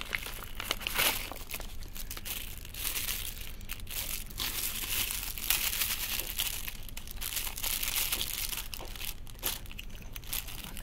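Clear plastic packets and a paper courier mailer crinkling and rustling in irregular bursts as they are handled and unwrapped.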